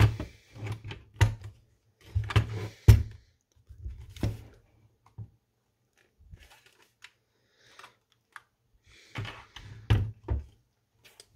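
Airsoft M4 rifle with 3D-printed plastic furniture being handled and set down on a wooden table: a series of knocks and clacks, clustered in the first three seconds, a quiet stretch in the middle, then another cluster about nine to ten seconds in.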